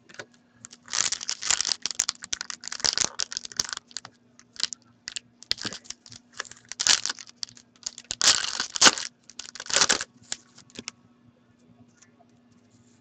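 Foil wrapper of a hockey card pack crinkling and tearing as it is handled and opened, in several bursts with sharp crackles, dying away near the end.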